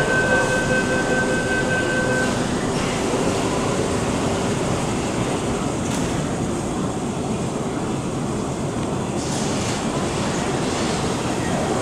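MTR M-Train electric subway train rolling slowly through an underground station: a steady rumble of wheels on rail. A steady high whine runs over it and stops about two seconds in.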